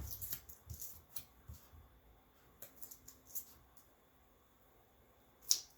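Faint rustling and a few light clicks of packaging and a board being handled, with one sharper crackle about five and a half seconds in.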